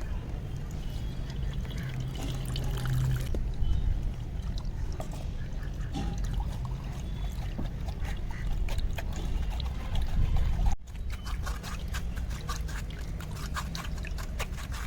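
Ground karpooravalli (Indian borage) and tulsi leaf juice being poured and strained through a sieve: liquid trickling, with small clicks and clinks of the utensils. The sound breaks off briefly about eleven seconds in, and the clicks come more thickly after that.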